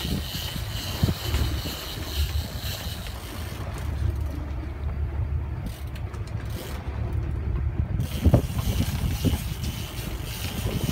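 Steady low rumble of a fishing boat at sea, with wind buffeting the microphone and a few scattered knocks, the sharpest a little after the middle.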